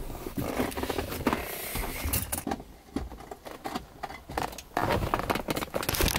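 Handling noises inside a car cabin: irregular rustling and scraping against a leather seat, with scattered clicks and knocks, as someone reaches under the dashboard to work the bonnet release and plug in a diagnostic tool.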